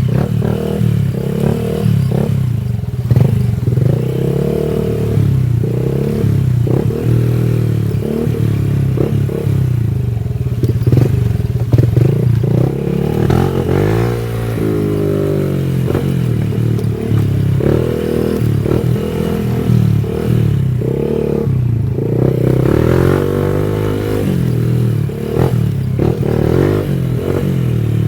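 Honda Wave 110i's small single-cylinder four-stroke engine running under way, its pitch rising and falling repeatedly with throttle and gear changes.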